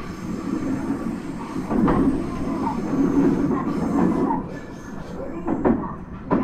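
Running noise of a JR East E127 series 0-subseries electric train heard from inside the car: a steady rumble of wheels on rail, with a few knocks from rail joints and brief wheel squeals.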